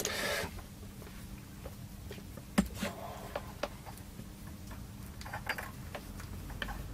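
Light, scattered ticks and clicks of a thin wire being handled over paper sheets on a workbench, the sharpest tick about two and a half seconds in and a small cluster of them near the end.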